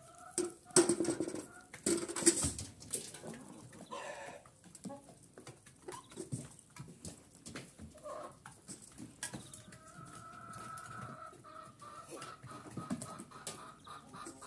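Domestic chickens clucking, with a longer, steadier call in the second half. Two loud noisy bursts come about one and two seconds in.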